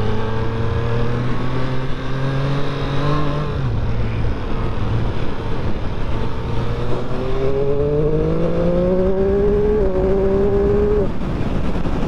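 Triumph Street Triple 765 RS's 765cc inline three-cylinder engine under way. The engine note holds steady and drops off about three and a half seconds in, then rises as it accelerates from about seven seconds, with a short dip in pitch near ten seconds. It is heard from a mic inside the rider's helmet, with wind rush underneath.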